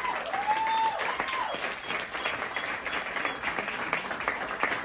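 Audience applauding with dense, steady clapping, and a few voices whooping and cheering over it in the first second or so.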